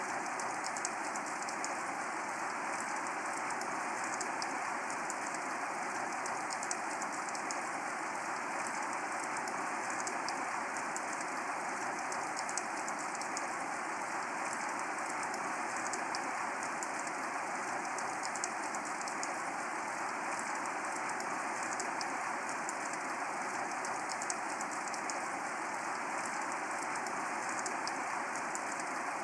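Steady rainfall: an even, unbroken hiss of rain with many fine drop ticks layered through it.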